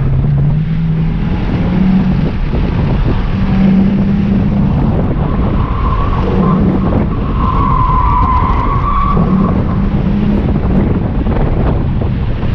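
Subaru WRX's turbocharged flat-four engine driven hard on track, its note climbing and dropping repeatedly with acceleration and shifts, over heavy road and wind rumble. Worn all-season tyres squeal through a corner from about six to nine seconds in as they lose grip.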